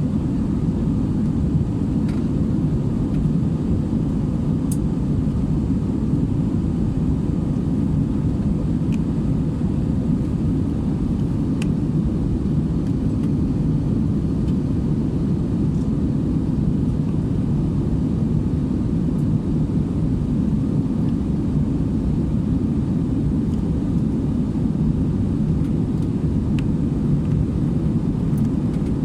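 Passenger airliner in flight heard from inside the cabin: a steady low rumble of engine and airflow noise.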